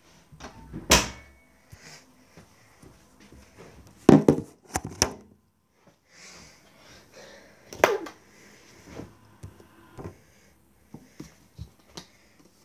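Clothes rustling and a few sharp knocks and bumps close to the microphone as a T-shirt is swapped for a jacket; the loudest knocks come about a second in, around four to five seconds, and near eight seconds.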